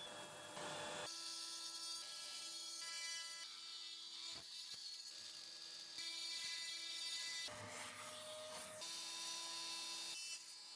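Power tool with a diamond-grit tile bit cutting through ceramic wall tile: a steady, fairly quiet whine, heard in several short sections that change abruptly.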